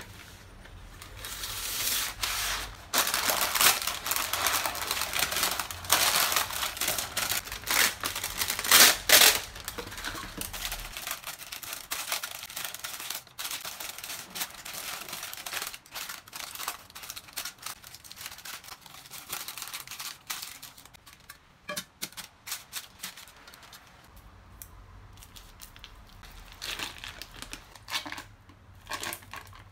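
Baking parchment paper pulled off its boxed roll, torn off and crinkled as it is pressed into a cake pan. The paper noise is loudest and densest in the first ten seconds, then thins to softer, scattered rustling, with a plastic bag crinkling near the end.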